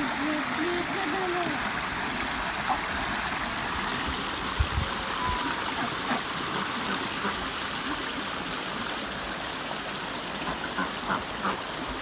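Shallow stream running over stones and a small cascade: a steady rush of trickling water.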